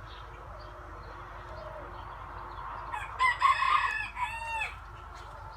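A rooster crows once, about three seconds in, a loud call under two seconds long whose end falls in pitch.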